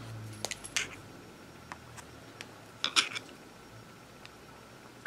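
Sharp metallic clicks and clinks of a small screwdriver against the steel frame of a Beretta 92FS pistol, as the hammer spring cap is pressed and its retaining pin worked at. A few clicks come about half a second in and a louder cluster around three seconds in.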